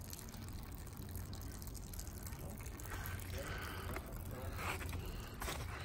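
Water trickling and dripping from melting snow, with a few footsteps on wet ground near the end.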